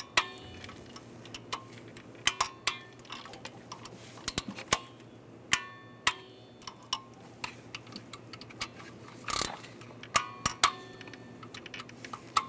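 Torque wrench clicking as each bolt is rechecked at 106 inch-pounds: irregular sharp clicks, some with a short metallic ring. Each click marks a bolt reaching its set torque.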